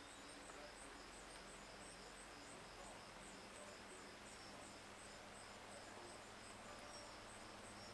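Faint, steady chirping of crickets, about two chirps a second, with little else but quiet outdoor background.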